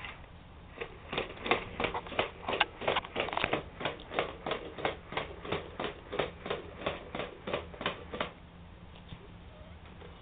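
Robotic toy cat walking: a steady run of hard plastic clicks, about three to four a second, that stops about eight seconds in.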